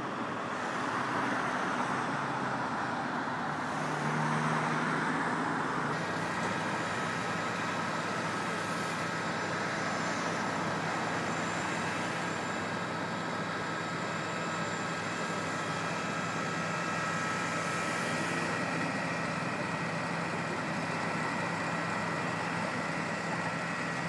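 Motorway traffic noise with vehicle engines running. A louder rushing sound in the first six seconds changes abruptly to a steadier engine hum with a faint whine.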